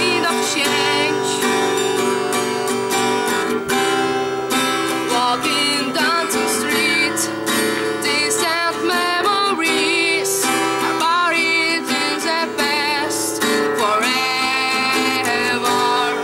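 Acoustic guitar strummed under a sung melody with vibrato: a woman singing to her own guitar.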